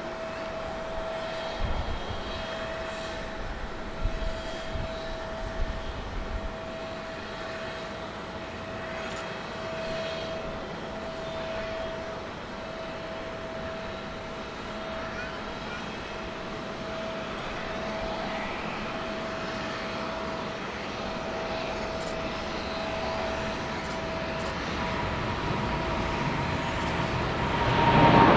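Boeing 777-300ER's GE90 turbofan engines running with a steady whine as the airliner moves along the runway, then growing sharply louder near the end as the jet accelerates past on its takeoff roll.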